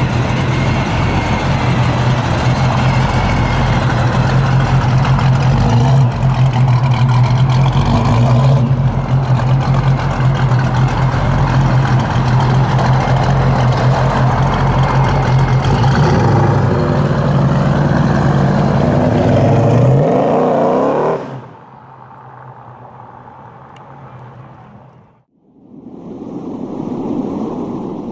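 Procharger-supercharged 440 big-block V8 of a 1972 Plymouth 'Cuda running loud and steady, then revving up with a rising pitch and cutting off abruptly about 21 seconds in. After that there is only a much quieter sound, a brief silence and another swelling sound near the end.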